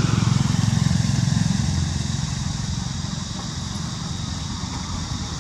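A motor vehicle's engine passing close by: a low rumble that is loudest for the first two seconds, then slowly fades away.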